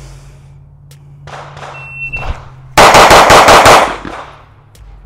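A shot timer beeps once to start a timed drill, and about a second later a CZ Shadow 2 Compact 9mm pistol fires six fast shots, about a fifth of a second apart.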